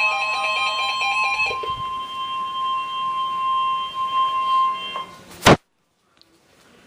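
Emergency alert attention tone: one steady, single-pitch alarm tone that signals the start of a severe weather alert, with the last chords of music under it for about the first second and a half. The tone cuts off about five seconds in, followed by a sharp click and a short silence.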